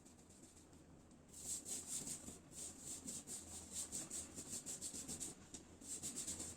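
Rapid rhythmic rubbing strokes, several a second, starting about a second in, with a brief pause near the end.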